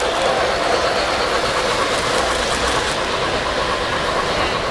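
3-rail O-scale model freight train running past on tinplate track: a steady rolling rumble of many cars' wheels on the rails.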